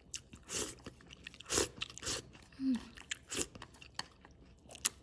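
Close-up eating sounds: slurping garlic-sauced glass noodles and sucking steamed scallop off its shell, with wet chewing, in about half a dozen separate short bursts.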